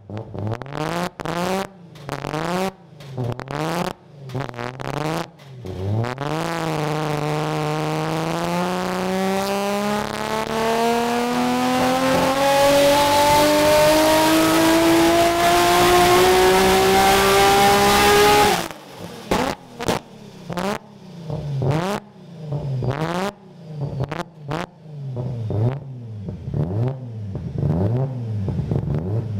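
Nissan R32 Skyline GT-R's RB26DETT straight-six, enlarged to 2.7 L and turbocharged with an HKS GT III-5R, run on a Dynapack hub dynamometer during tuning. A few short revs come first, then a loaded power pull rising steadily in pitch for about twelve seconds that cuts off suddenly, then more short throttle blips.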